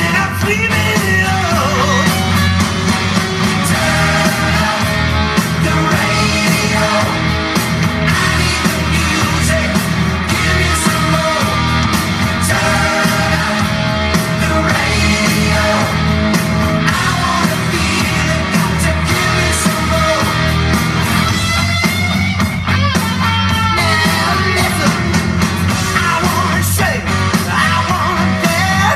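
Rock song with singing over a steady beat, laid over the footage as a soundtrack.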